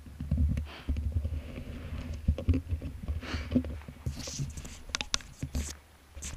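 Wind buffeting a small action camera's microphone, giving an uneven low rumble, along with rustles and clicks from the camera being moved and handled.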